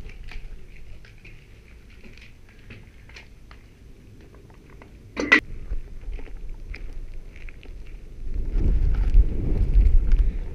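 Faint scuffs and small clicks of a person moving about with a handheld camera, with one sharp click about halfway through. Over the last two seconds there is a louder low rumble of handling noise on the microphone.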